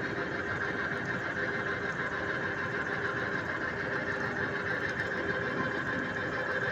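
Pipe-threading machine running steadily as its cutter wheel cuts through a 2-inch galvanized iron pipe.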